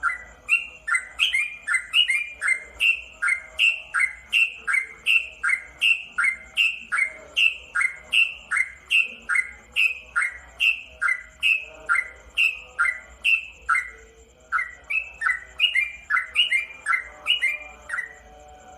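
Yellow-vented bulbul (trucukan) singing a fast, continuous run of repeated phrases, about two to three a second, each note a quick sliding chirp; there is a brief break about 14 seconds in before it resumes.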